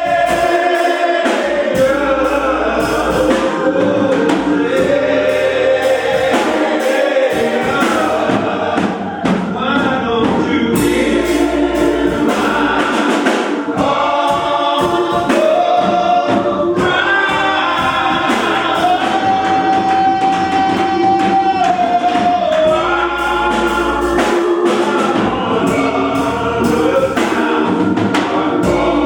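Gospel choir singing a slow hymn with sustained, sliding notes over instrumental accompaniment.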